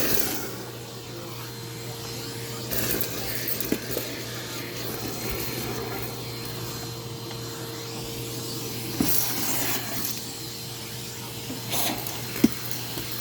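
Vacuum cleaner running with a steady hum and whoosh, picking up cookie crumbs, with a few sharp clicks and rattles along the way.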